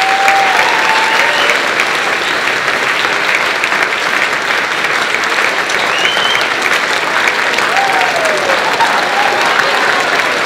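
A large crowd applauding steadily and loudly, with a few voices whooping over the clapping.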